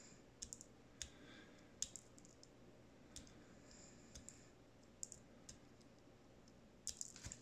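Small flush cutters nipping leftover bits off a small plastic model part: a dozen or so faint, sharp snips at uneven intervals.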